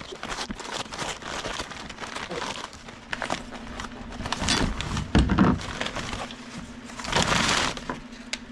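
Plastic packaging rustling and crinkling, with irregular clicks and knocks as parts of a coilover sleeve kit are handled and unpacked, louder bursts about five and seven seconds in.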